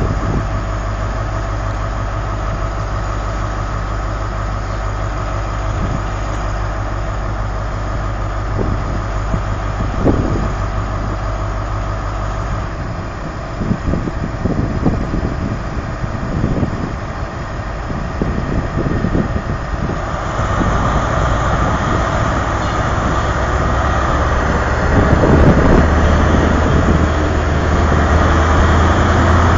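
Diesel engine of a Class 43 HST power car idling at a standstill with a steady low hum. From about two-thirds of the way in it grows louder and fuller as the power car takes power and the train starts to pull away.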